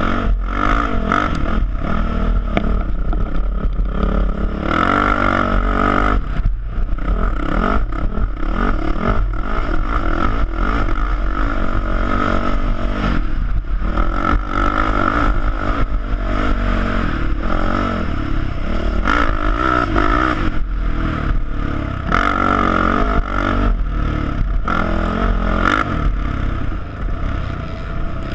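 Sport ATV engine revving up and down as the quad is ridden, its pitch repeatedly rising and falling, with heavy wind rumble on the helmet-mounted microphone.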